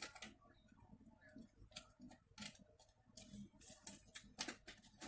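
Faint, irregular clicks and light taps, like small objects being handled and set down, over a quiet room.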